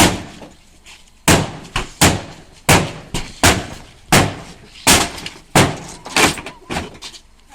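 A sledgehammer striking the body of a Renault Laguna car about ten times, with roughly one heavy metal-and-glass smash every 0.7 s.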